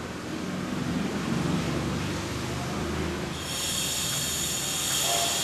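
A low rumble, joined a little past halfway by a steady high-pitched squeal made of several tones at once.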